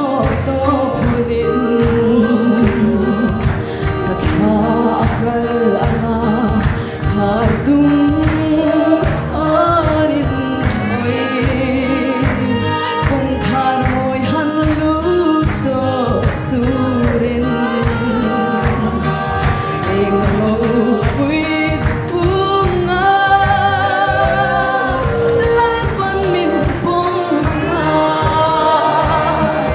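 Gospel song led by a woman singing through a microphone, with many voices singing along over a steady beat.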